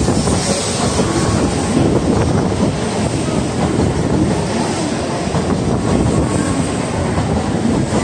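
N700A-series Shinkansen train pulling into the station platform at low speed: a steady rumble of wheels on rail as the cars slide past.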